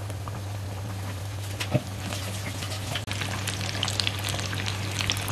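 Breadcrumb-coated chicken bread patties deep-frying in hot oil: a steady sizzle with many small popping crackles that get busier after about three seconds.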